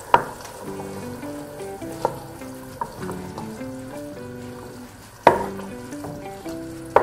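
Wooden spoon stirring diced tomato and onion through olive oil in a stainless steel pot, with a light sizzle and a few sharp knocks of the spoon against the pot. The loudest knock comes about three-quarters of the way through. Soft guitar-like music plays underneath.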